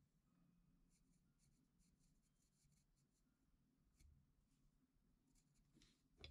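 Faint scratching of a pencil drawing lines on a carved wooden figure, in short irregular strokes, with a light knock about four seconds in.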